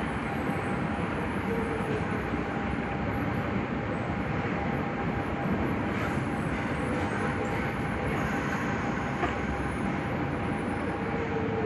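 Nagoya Municipal Subway 5050-series train running between stations: a steady rolling rumble of wheels and running gear, with a faint steady tone held throughout.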